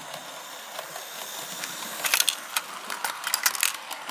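Model train running on its track: a steady running whir, then, from about halfway through, a quick run of clicks and rattles as its wheels cross rail joints while it passes close by.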